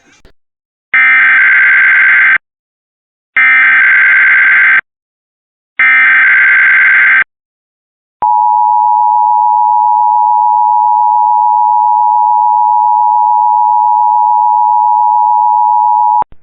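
Emergency Alert System SAME header: three identical screechy digital data bursts about a second apart, then the two-tone EAS attention signal held steady for about eight seconds, opening a coordinated monthly test.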